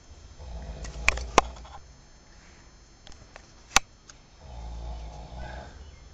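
A sleeping man snoring loudly: two long, rough snores about four seconds apart, with a few sharp clicks in between.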